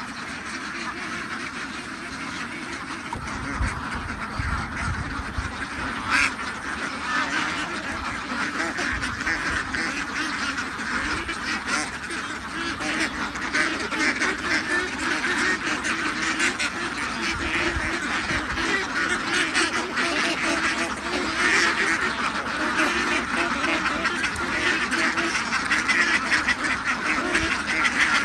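A large flock of young domestic ducks quacking all at once, a continuous din of overlapping calls that grows somewhat louder toward the end.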